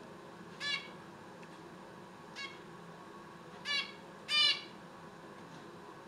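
Female zebra finch giving four short calls, spaced irregularly, with the last two close together and the loudest near the end.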